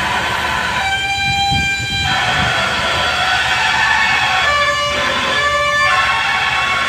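Background music led by a guitar, playing a melody whose notes change about once a second.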